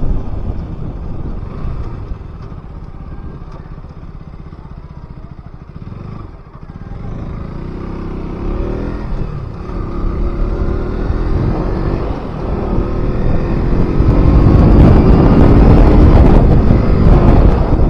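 KTM RC 200's single-cylinder engine and exhaust on the move. The engine note falls away over the first few seconds, then the revs rise again in stretches with a climbing pitch. It is loudest near the end.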